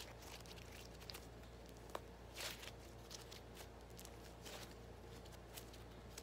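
Butter slime being stretched and squeezed by hand, making faint scattered sticky pops and soft squelches over a steady low hum.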